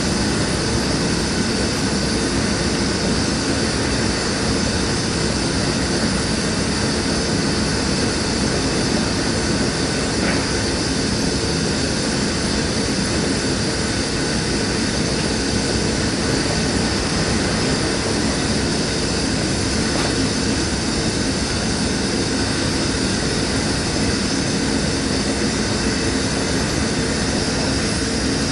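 Propane torch flame burning steadily: an even, unbroken hiss.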